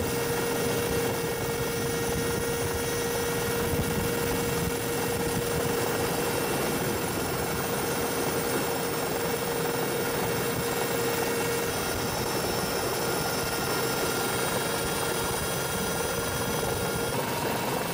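Helicopter engine and rotor running steadily: a constant drone with a steady whine held at one pitch.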